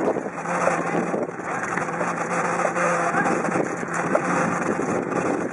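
Wind buffeting the microphone of a bicycle-mounted compact camera while riding, a steady rushing noise with no pauses.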